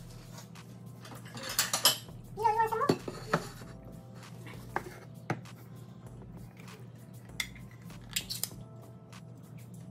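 A metal fork clinking and scraping against a plate in scattered sharp clinks, a cluster about two seconds in and another near the end.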